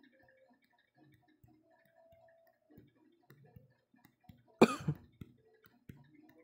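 Faint, irregular ticking in a quiet room, then one short, loud cough from a man about four and a half seconds in.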